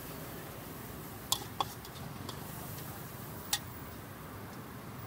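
A few sharp metal clinks of a cooking utensil against steel cookware, two close together about a second and a half in and another near three and a half seconds, over a steady background hiss.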